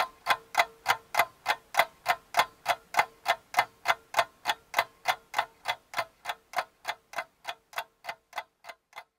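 Clock-like ticking, even and quick at about three ticks a second, growing fainter over the second half and stopping near the end.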